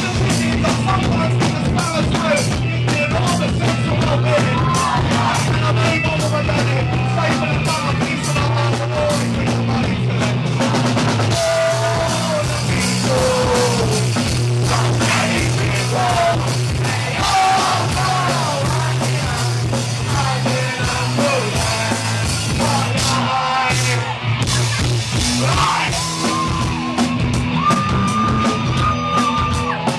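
Live rock band playing loud: electric guitar and drum kit, with a singer singing and yelling into a microphone. A long note is held near the end.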